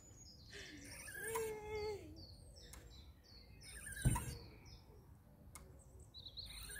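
Small birds chirping and twittering, faint, with a short wavering squeal about a second and a half in and a single soft thump about four seconds in.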